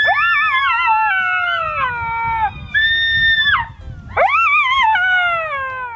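Jackal howling: three high, wavering howls. The first and last are long and slide down in pitch; the middle one is short and steady.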